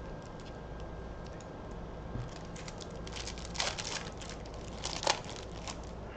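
Plastic card pack wrapper being crinkled and torn open, with light rustles at first, then denser crinkling. The loudest rips come about three and a half and five seconds in.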